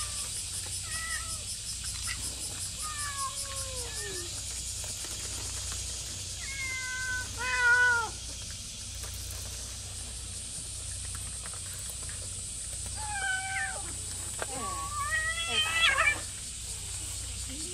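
Cats meowing: about five separate drawn-out meows, some sliding down in pitch and some rising. The loudest comes about eight seconds in and another near the end.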